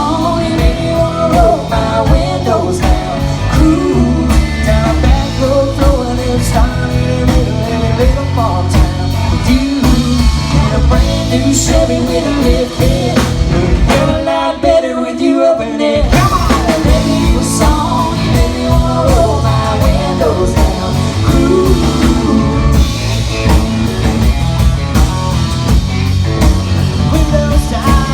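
Rock song playing with a full band. The bass end drops out for about two seconds midway, then the full band comes back.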